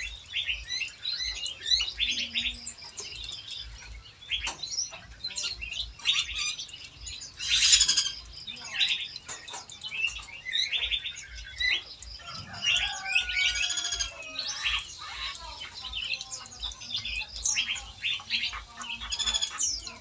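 Several small aviary birds chirping and calling at once, with quick overlapping chirps and trills throughout. A loud rasping burst comes about eight seconds in, and a drawn-out whistle slides down in pitch a little past halfway.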